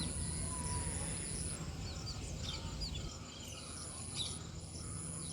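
Domestic chicks peeping: a scattering of short, high, arched peeps. Behind them runs a steady high-pitched whine that drops out for a couple of seconds early on.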